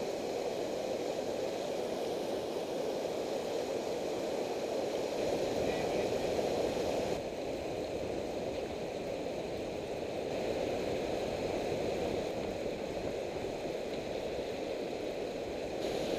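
Steady rush of river water pouring over a low dam spillway and through shallow rapids, dipping slightly in level about seven seconds in.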